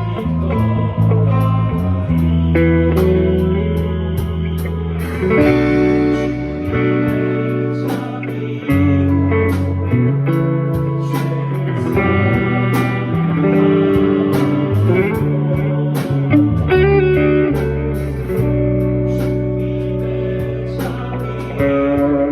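Instrumental music for a tone test: a plucked, guitar-like melody over a bass line and a steady drum beat.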